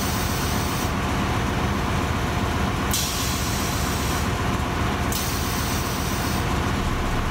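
Steady drone of a ship's engine-room machinery, with a high hiss that swells in and drops away three times.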